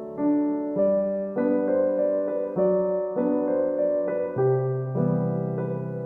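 Background music: soft piano, chords changing about every half second.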